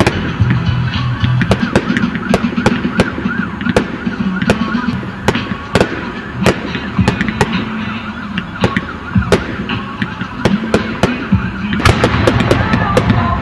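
Fireworks display: a rapid, irregular string of bangs and crackles from bursting shells and ground-fired fountains. A warbling whistling tone sounds through the first few seconds.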